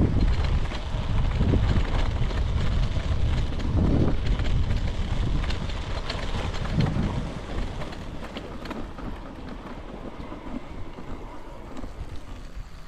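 Wind buffeting a helmet-mounted microphone while riding a dirt bike, the engine revving up in short pulses under the rumble. It turns quieter about two-thirds of the way through.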